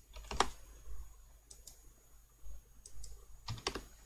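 A few scattered computer keystrokes and mouse clicks, the loudest about half a second in and a quick cluster near the end, over a low steady hum.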